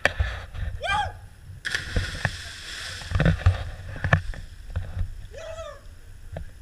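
A person jumping into the sea with a splash partway through, then the water churning around him as he surfaces. Wind knocks on the microphone, and two short high calls come at about one second and near the end.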